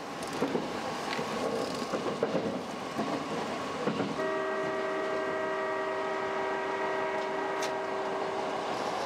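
Hankyu 6300 series electric train running at speed with wheel-on-rail clatter. About four seconds in, a steady horn sounds and is held for about four and a half seconds, a warning as the train runs through a station without stopping.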